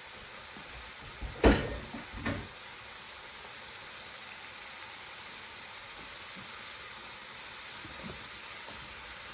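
Curry base simmering in a pan on the hob with a steady soft sizzle. About a second and a half in, two or three sharp knocks of something hard being set down or bumped.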